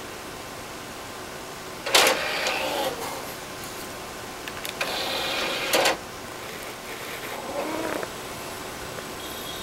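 A DVD player's disc-tray motor whirring in two short runs, about two and five seconds in, and a cat meowing near the end.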